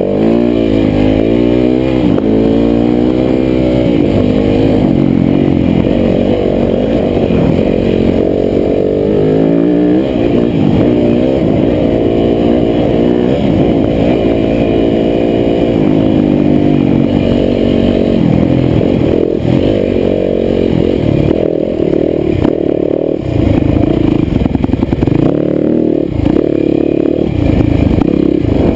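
Off-road dirt bike engine being ridden hard, revving up and dropping back again and again as the rider works the throttle and gears, then running steadier at higher revs near the end.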